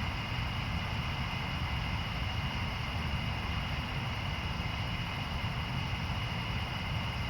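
Steady outdoor night ambience: a constant low rumble with a steady high-pitched hum over it, and no distinct thunderclaps.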